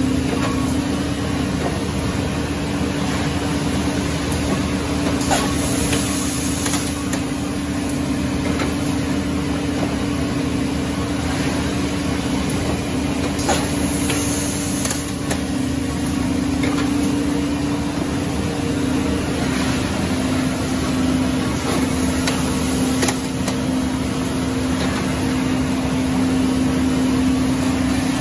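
Plastics-processing machinery running on a factory floor: a steady mechanical din with a constant low hum and a few faint clicks.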